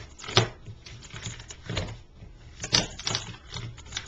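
Plastic tiles of a Rubik's Master Magic folding puzzle clacking against each other as the puzzle is flipped and folded by hand: a run of sharp, uneven clacks, one or two a second.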